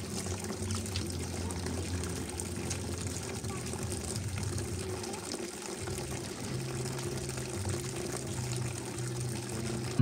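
Water running steadily from a garden hose into a plastic tub as the tub fills.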